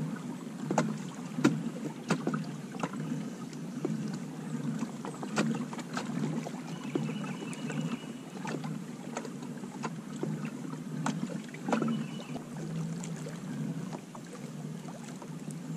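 Native Manta Ray 12 Propel pedal-drive kayak under way on a river: a steady low hum with irregular clicks and knocks from the hull and pedal drive. A short run of high chirping comes twice, about halfway through and again a few seconds later.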